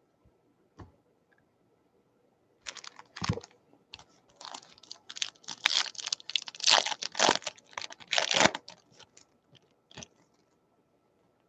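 Plastic baseball card pack wrapper crinkling and tearing as it is opened, in irregular crackly bursts that start about two and a half seconds in and thicken through the middle.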